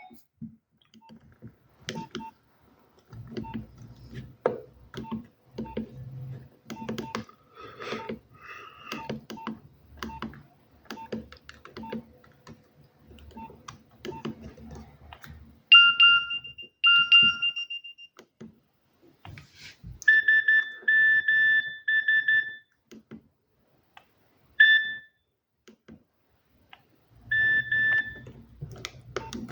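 Nokia 6030 mobile phone beeping as it is handled and its keys are pressed. In the first half there are faint short blips about once a second over handling rustle; from about halfway on there are louder electronic beeps in short runs, each with two pitches sounding together.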